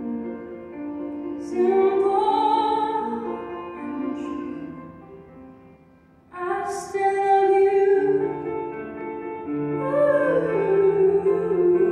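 A woman singing with grand piano accompaniment. The voice fades almost away about six seconds in, then comes back loud, holding long notes over the piano.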